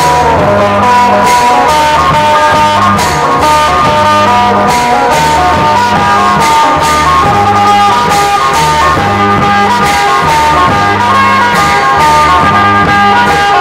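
Music: a melody over a bass line with a steady beat.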